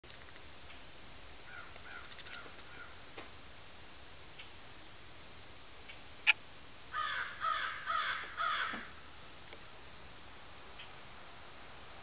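A crow cawing: a few faint caws early on, then a loud run of about four harsh caws in quick succession, roughly two a second, about seven seconds in. A single sharp click sounds just before the loud run.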